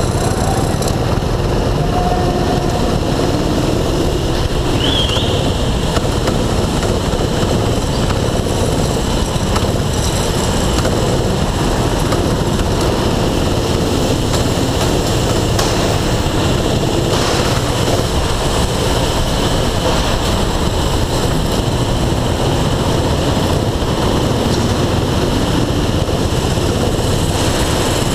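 Go-kart's small engine running under throttle, heard from onboard the kart as a steady, loud drone mixed with rumble and rushing noise.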